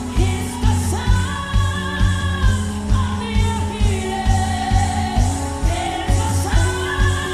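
Live gospel worship music: a band playing a steady low drum beat about twice a second under long held chords, with voices singing sustained notes.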